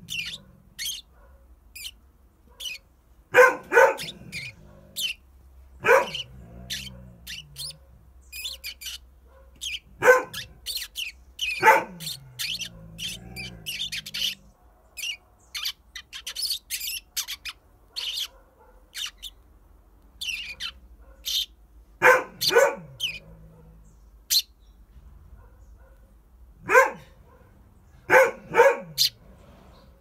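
A dog barking about ten times, some single barks and some quick doubles, answered throughout by the rapid short chirps of a Eurasian tree sparrow.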